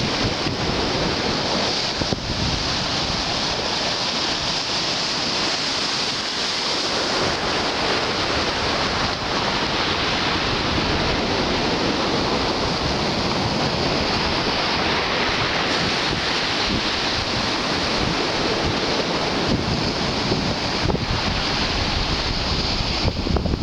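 Black Sea surf washing steadily onto the beach, with wind buffeting the microphone.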